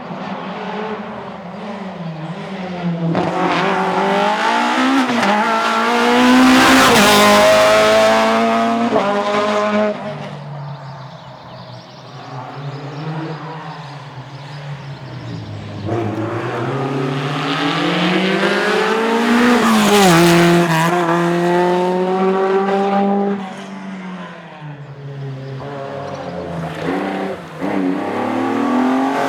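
Two rally cars passing on a tarmac stage, one after the other, each engine revving hard up through the gears in rising steps as it approaches. The first is loudest about a quarter of the way in and the second about two-thirds in, each pitch falling away as the car goes past.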